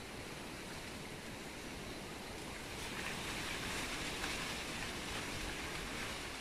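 Wind gusting through palm fronds and tree leaves: a steady rushing noise that grows a little louder about halfway through.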